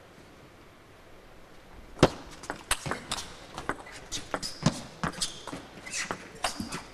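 Table tennis rally: the celluloid-type ball clicks sharply off the bats and the table in quick, irregular succession, starting about two seconds in, with the first stroke the loudest.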